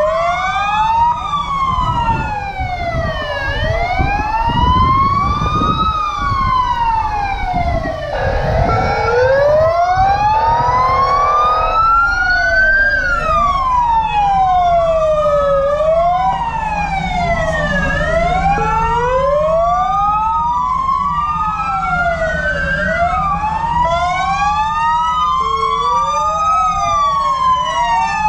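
Several fire engine sirens wail at once, each rising and falling slowly and out of step with the others, over the low rumble of truck engines. A steady horn sounds for about four seconds, starting about eight seconds in.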